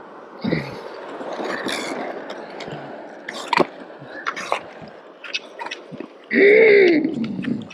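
Ice skates scraping on bare lake ice, with sharp clicks of ski-pole tips striking the ice. About six seconds in comes a short loud vocal cry that rises and falls in pitch.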